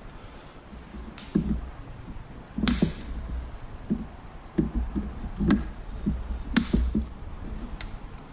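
Zip-tie tails being snipped off with cutters: about six sharp snaps at irregular intervals, the loudest a few seconds in, with soft knocks and handling of the cooler and fan between cuts.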